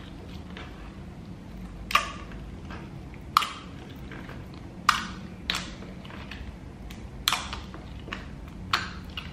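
Hand-played slime popping and clicking as it is pressed and stretched: about six sharp pops, one every second or two.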